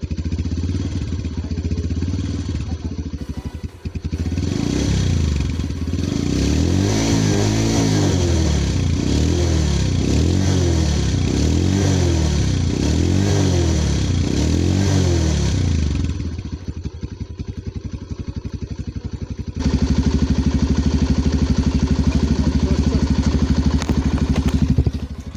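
Bajaj Pulsar 150's single-cylinder engine running, heard close at its silencer. Through the middle the exhaust note swells and falls about once a second, and it settles to a steady, louder beat near the end.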